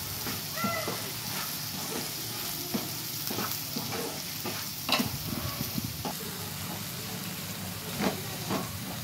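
Turkey berries, onion and tomato frying in oil with freshly added chilli powder, sizzling steadily while a wooden spatula stirs and scrapes the pan. Short knocks and scrapes of the spatula are scattered through it.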